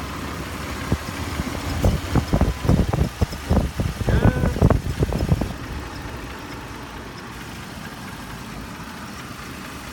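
2002 Toyota Tundra's 3.4-litre V6 idling steadily, its freshly tightened alternator and power steering belts running without any squeal. From about two seconds in, a run of loud irregular knocks and thumps lasts a few seconds and then stops.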